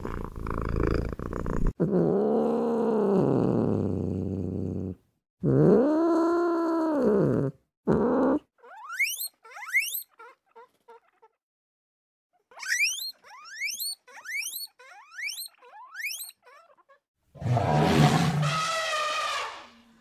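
A series of animal calls. Two long, deep calls rise and fall in pitch, then come runs of short, quickly rising chirps, and another loud call near the end.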